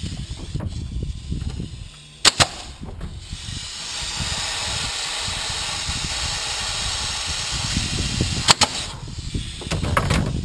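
Pneumatic air tools: two quick sharp snaps about two seconds in, then compressed air hissing steadily for about five seconds, then another pair of snaps and a few more clicks near the end.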